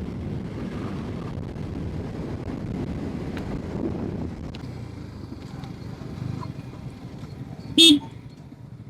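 Steady low rumble of motor vehicles, with one short vehicle horn toot near the end, the loudest sound.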